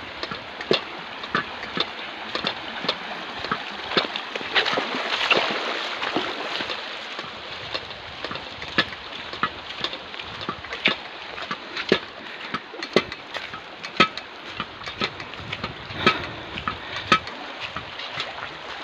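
Footsteps splashing through shallow water running over a rocky riverbed: sharp, irregular splashes about once or twice a second over a steady rush of flowing water.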